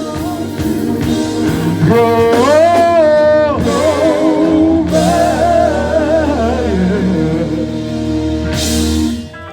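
Gospel singing with a live band: a voice holds long notes with vibrato over bass, guitar and drums. The music cuts off sharply just before the end.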